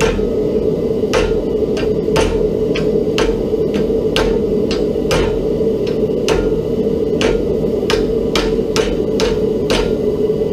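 Hammer blows on steel as a cowboy hat is forged, about a dozen sharp strikes roughly a second apart that come a little faster near the end, over a steady background hum.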